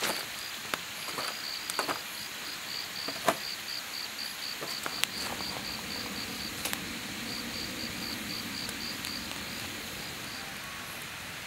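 Split firewood burning in a campfire pit, crackling with sharp pops now and then over a steady hiss. A cricket chirps in quick, even pulses and falls silent near the end.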